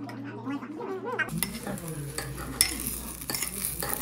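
Food sizzling as it fries in a hot pan, starting abruptly about a second in, with a few clicks of utensils against the pan.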